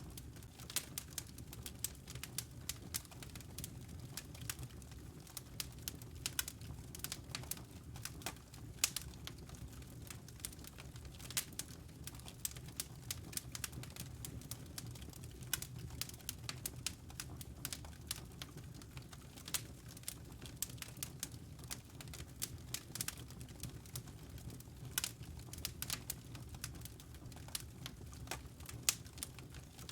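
Wood fire crackling, with frequent sharp irregular pops and snaps over a low steady rumble of the flames.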